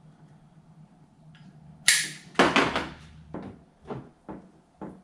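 Electrical tape being pulled off its roll in a run of short rasping strips, with a sharp snap about two seconds in and the loudest rasp just after it.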